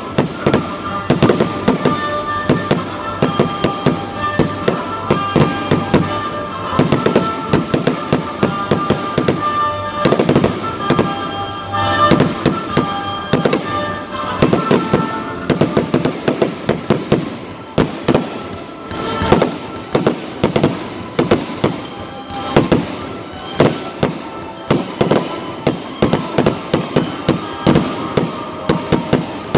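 Fireworks exploding in quick, continuous succession, many sharp bangs overlapping one another throughout.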